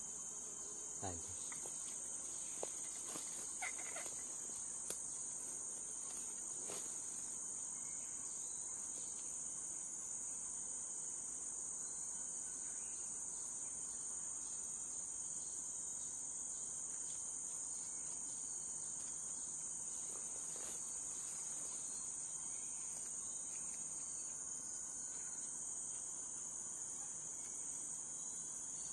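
Steady high-pitched drone of an insect chorus. A few short light clicks come in the first several seconds.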